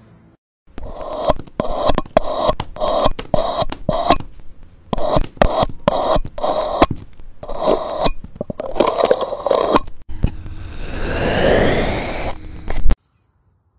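A knife cutting into a block in repeated scraping strokes, about two a second. Then a steel tube pushed down into a foam block, rubbing with a squeak that rises in pitch and stops abruptly near the end.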